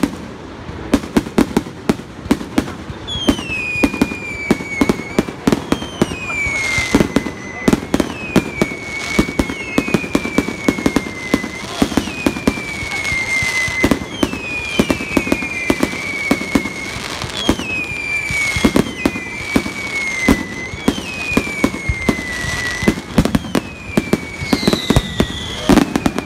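Aerial fireworks going off in a rapid finale barrage: a dense string of sharp bangs from bursting shells, with falling whistles from whistling fireworks sounding one after another from about three seconds in.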